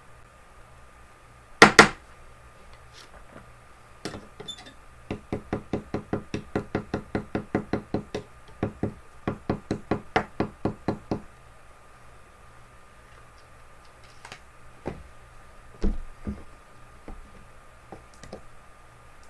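Knocking: two sharp knocks, then a quick even run of about four knocks a second lasting around six seconds, then a few scattered knocks near the end.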